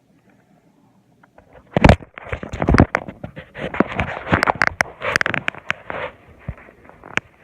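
Slime being squished and poked by hand, making a dense run of sharp sticky clicks and squelches that starts about two seconds in.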